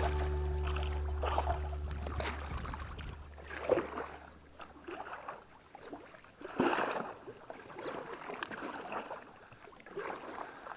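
A double-bladed kayak paddle dipping and splashing in river water in separate strokes every second or two as an inflatable kayak is paddled. Background music fades out over the first few seconds.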